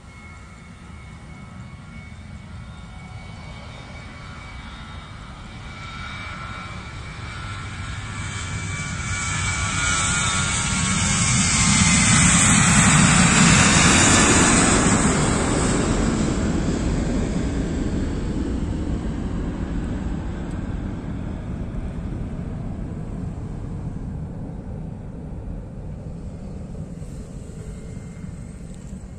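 Boeing 737 jet airliner's engines at takeoff thrust as it rolls, lifts off and passes: the sound builds steadily, is loudest about halfway through with a whine that drops in pitch as the plane goes by, then fades slowly as it climbs away.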